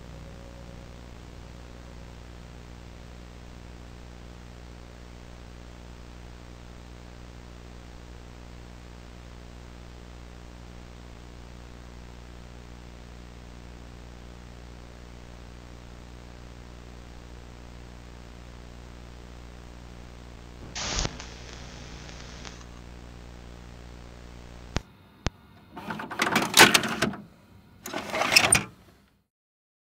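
Horror sound design: a low, steady drone of several held tones, broken about two-thirds of the way through by a sudden loud hit. Near the end come two loud, harsh noise bursts, and then the sound cuts out.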